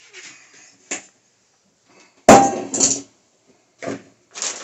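A colander nested in a mixing bowl is set down on a wooden table with a sharp clatter and a brief ring about two seconds in. A softer knock follows near the end, after light handling noise at the start.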